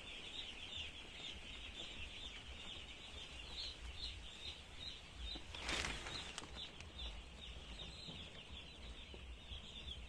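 Many chicks peeping at once: a dense, continuous chatter of short high calls from a crowded flock of chicken chicks. A brief louder rustle about six seconds in.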